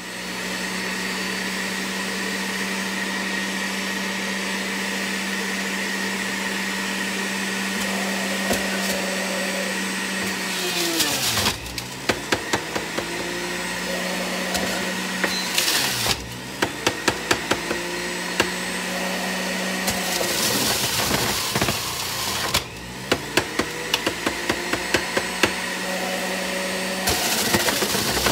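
Bella centrifugal juicer's electric motor running with a steady hum. From about ten seconds in it labours and drops in pitch several times as apple and cucumber pieces are pushed down the feed chute, with a rapid clatter of chunks being shredded on the spinning cutter disc.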